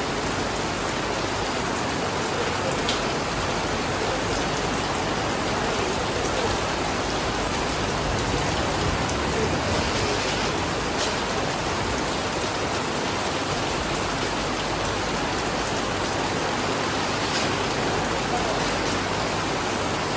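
Steady rain falling, an even hiss with a few sharper drips or splashes here and there.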